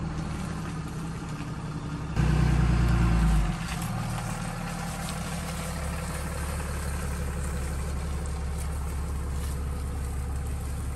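Ram heavy-duty pickup truck's engine running as the truck is driven slowly forward. It surges louder for about a second a couple of seconds in, then settles back to a steady low hum.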